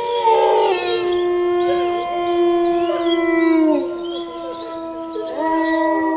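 A long howling wail held on one steady pitch for about four seconds, fading slightly, then a second wail starting about five and a half seconds in.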